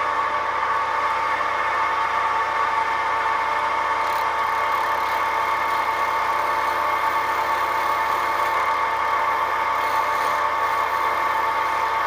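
Record CL1 wood lathe running steadily at speed, its motor and headstock giving a steady hum, with a squared teak blank spinning in the chuck. It is a test run before any cutting, to check that the blank spins steadily.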